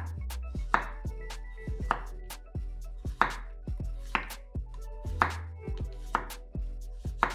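Chef's knife slicing a zucchini into thin rounds, the blade knocking on a wooden cutting board about once a second with lighter taps between, over background music.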